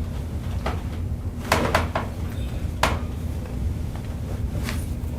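Joints of the spine cracking under a chiropractic adjustment: a quick run of three sharp pops about a second and a half in, another a second later, and a fainter one near the end, over a steady low hum.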